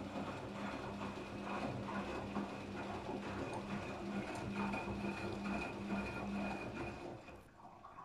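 Daewoo DWD-FT1013 front-loading washing machine in its softener rinse: the drum turning with a steady motor hum and water sloshing inside. Near the end the motor hum stops and the sound dies down as the drum comes to rest.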